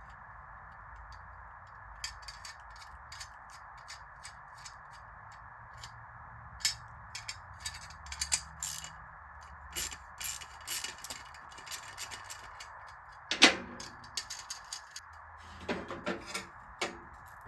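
Metal clicks, knocks and clanks of chrome exhaust tips and band clamps being handled and worked onto a muffler's tailpipe outlets. One louder ringing clang comes a little past the middle, over a steady faint hiss.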